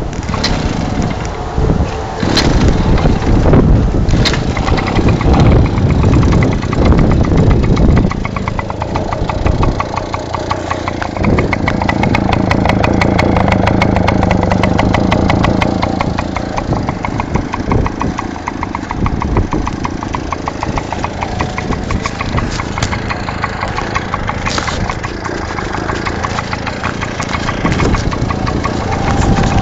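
Tomos moped's two-stroke engine running, mostly at a steady idle, heard close to the end of its open exhaust pipe. A couple of sharp knocks come in the first few seconds.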